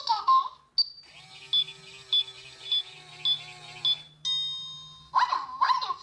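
Toy microwave's electronic cooking sound effect: a button beep, then a steady whirring hum with a short high beep about every half second, ending about four seconds in with a ringing 'ding' that fades away, the signal that the food is done.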